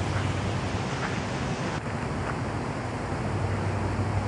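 Steady rushing noise of the flood-swollen river running fast beside the path, with wind rumbling on the microphone.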